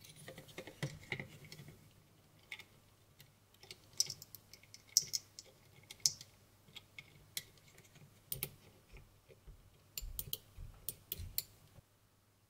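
Irregular small clicks and light scrapes of plastic parts being handled in an opened computer mouse as the LED is pushed into place inside the scroll wheel. The clicking is sparse at first, gets busier partway through, and stops shortly before the end.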